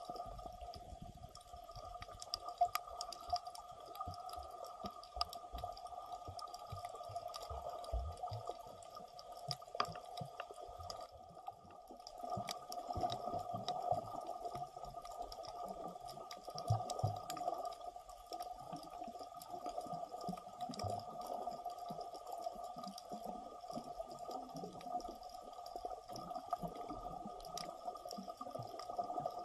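Underwater sound picked up by an Insta360 X3 sealed in its dive case: muffled water noise with a steady two-note hum, scattered small clicks and crackles, and uneven low rumbles.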